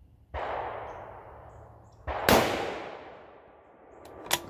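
Two rifle shots about two seconds apart, the second louder and sharper, each ringing out and dying away over about a second. Two sharp clicks follow near the end.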